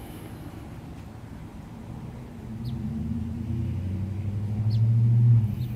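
Low engine drone that starts about two seconds in, grows steadily louder, and drops away sharply near the end.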